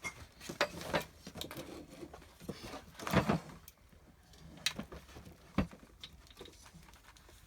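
Parts of an Ender 3 V2 printer kit being handled during assembly: irregular clicks and knocks, with a louder clatter about three seconds in and a sharp knock a little after five seconds.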